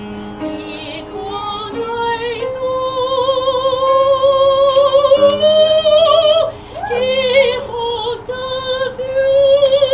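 A woman singing with a wide vibrato, holding long notes, to her own piano accompaniment. She breaks off briefly for a breath about two-thirds of the way through, then holds another long note.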